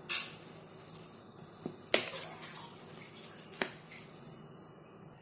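Wire potato masher mashing ripe bananas in a bowl, its metal head knocking and clicking against the bowl now and then, the sharpest knock about two seconds in.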